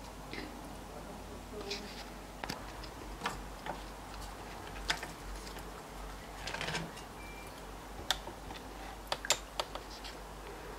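Scattered light taps and clicks of a wooden spatula against a heart-shaped electric waffle iron as a cooked waffle is lifted out and laid on a plate, with a brief rustle about two-thirds of the way through. A low steady hum runs underneath.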